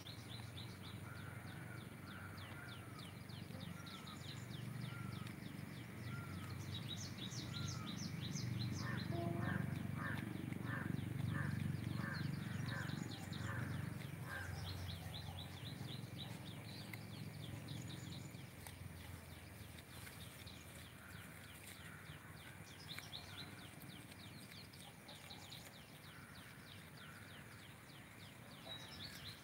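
Birds chirping and calling in a rapid, continuous twitter, with a run of short repeated call notes in the middle. A low rumble rises under them in the middle and fades again.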